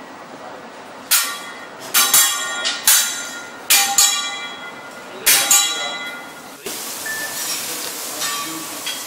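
Steel griddle spatulas and utensils struck together in a chef's flourish, about eight sharp ringing clangs, mostly in quick pairs. After about six and a half seconds, food starts sizzling on the hot griddle, with light scraping and clinks of metal.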